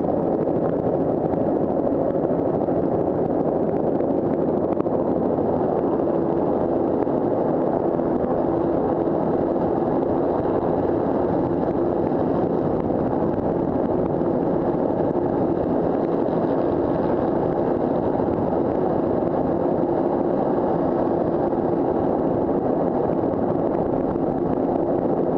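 Bell 206 JetRanger helicopter's Allison 250 turbine and main rotor running steadily at flight power, heard from the cockpit as it lifts off and climbs.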